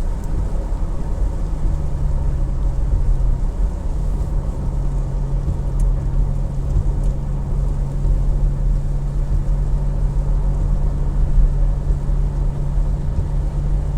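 Car driving, heard from inside the cabin: a heavy low rumble of engine and road with a steady hum that shifts pitch a couple of times in the first few seconds, then holds.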